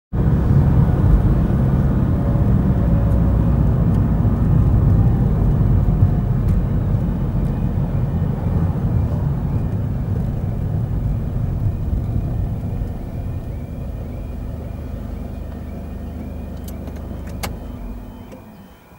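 Car engine and road noise, a steady low rumble that eases as the car slows and dies away near the end. From about halfway a level crossing's warning alarm repeats faintly as a warbling tone, with a few sharp clicks near the end.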